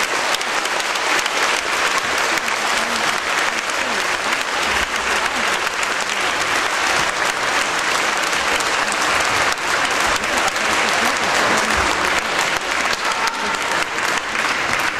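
A large audience applauding steadily, many hands clapping in a dense, even patter.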